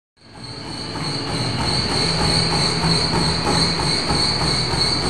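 Motorised treadmill running at speed under a sprinting runner: a steady high whine from the motor and belt over a low rumble, with the runner's footfalls beating regularly. It fades in over the first second or so.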